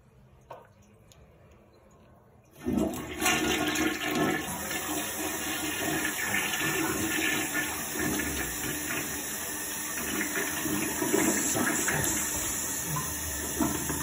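Tank toilet flushing: after near quiet, a loud rush of water starts suddenly about two and a half seconds in and keeps going as the bowl swirls and drains.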